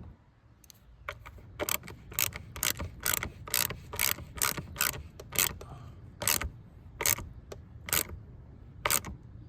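Socket ratchet wrench clicking in short strokes, about two clicks a second, as the battery's positive terminal clamp is tightened.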